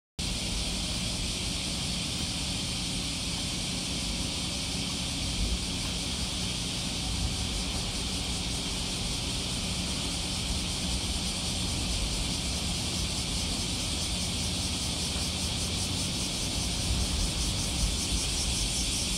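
A steady, high-pitched insect drone with a fast pulsing texture, typical of a summer cicada chorus, over a low rumble.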